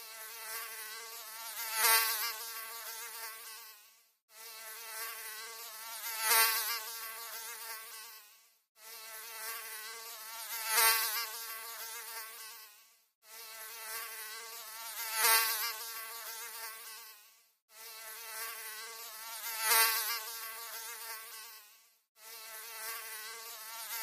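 Mosquito wingbeat whine, a high buzzing tone with a slightly wavering pitch. It swells to a loud peak about two seconds into each pass. The same short recording repeats about every four and a half seconds, with a brief silent gap between repeats, five times over.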